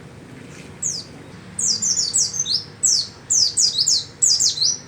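A bird calling in a quick series of short, high notes that slide downward, one note about a second in, then tight runs of several notes each.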